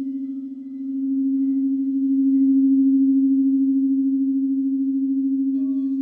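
Quartz crystal singing bowl sounding one low, pure, steady tone with a slow pulsing waver, swelling louder after about a second. Near the end a second, higher-pitched bowl is struck and rings over it.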